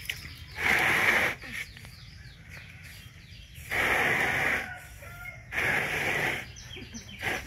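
Chickens calling in the background: three harsh calls, each about a second long, coming about one, four and six seconds in.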